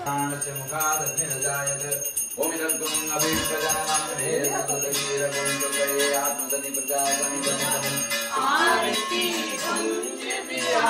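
A brass puja hand bell rung continuously through an aarti, its ringing running without a break over devotional singing with musical accompaniment.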